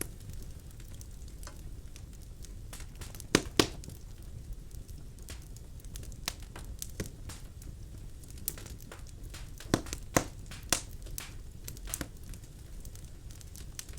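Birch logs burning in a fireplace: a low steady rumble of flame with scattered sharp crackles and pops, the loudest a quick pair about three and a half seconds in and another pair about ten seconds in.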